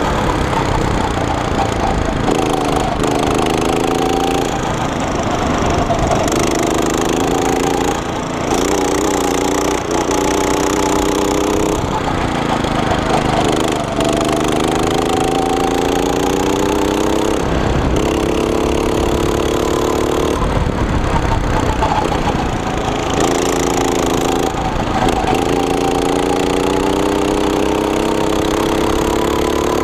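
Go-kart's small single-cylinder engine, heard right beside it, revving up and down lap after lap. The pitch climbs steadily for a few seconds, then falls away sharply as the throttle comes off into each corner.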